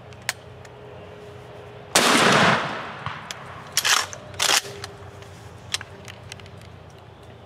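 A single blast from a Remington 870 pump shotgun about two seconds in, with a short echoing tail. Two shorter, sharp noises follow about two seconds later.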